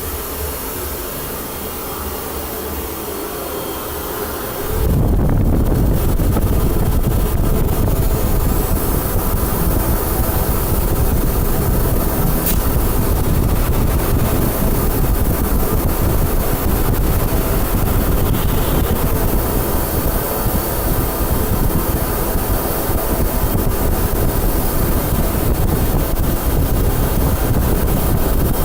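Three-phase industrial wet-and-dry vacuum cleaner running with a steady rush of air. About five seconds in its sound jumps louder and deeper, then holds steady.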